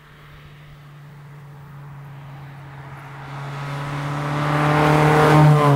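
1961 Lotus Elite Type 14 Super 95, with its 1.2-litre Coventry Climax four-cylinder engine, driving up and past at a steady engine speed. The engine note grows steadily louder and drops in pitch as the car goes by near the end.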